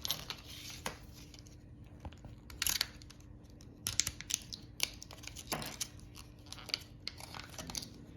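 Hands handling a small plastic key fob and coin-cell batteries: scattered light clicks and crinkly rustles, a few at a time with short gaps between.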